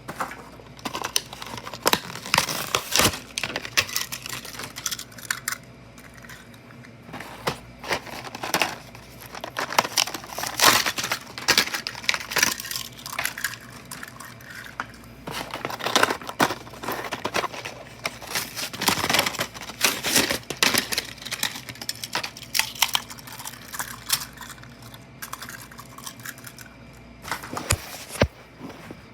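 Toy train packaging being handled and opened: plastic and card crinkling and tearing in irregular bursts, with clicks and small knocks.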